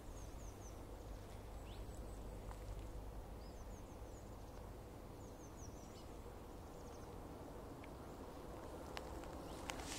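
Quiet mountain-forest ambience: small birds give brief high chirps in a few short groups over a steady low rumble. Footsteps on a pine-needle trail begin near the end.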